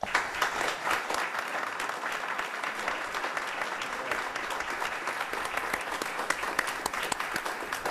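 An audience applauding: a round of many hands clapping that starts at once and dies away near the end.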